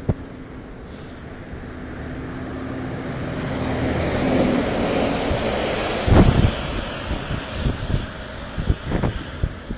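Articulated petrol tanker lorry overtaking: its engine and tyre noise builds as it comes alongside, loudest about six seconds in, then falls away as it pulls ahead. Gusts of wind buffet the microphone as it passes.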